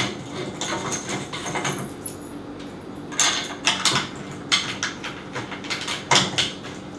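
Suspenz ceiling rack's steel arm, bolts and washers clinking and rattling against the ceiling post as the arm is fitted by hand, with a few sharp metallic knocks in the second half.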